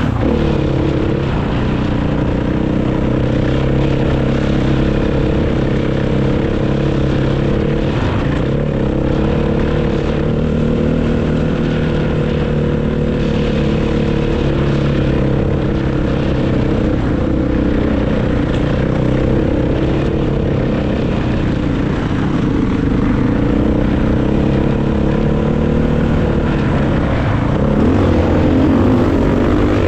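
Dirt bike engine running under way at a fairly steady speed, with the revs shifting briefly near the start and rising again near the end.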